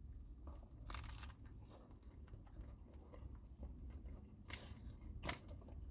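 A person faintly biting into and chewing a spicy chicken sandwich, with a few brief crunches.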